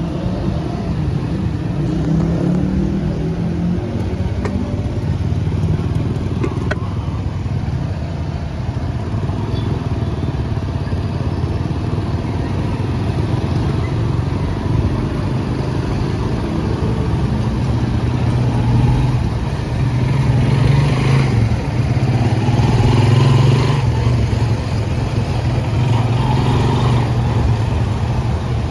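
Motorcycle engine running while riding, its pitch rising and falling with the throttle. It gets louder about two-thirds of the way through.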